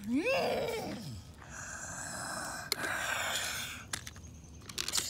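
A person's voice imitating a dinosaur: a roar that rises then falls in pitch over about a second, followed by two long breathy hisses.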